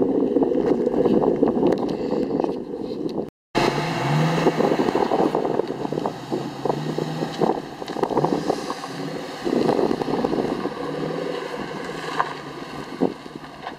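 Supercharged 4.6-litre V8 of a 2003 Mustang SVT Cobra with a Borla exhaust, running steadily under way for about three seconds. After a sudden cut it idles with a lumpy rumble and several short revs.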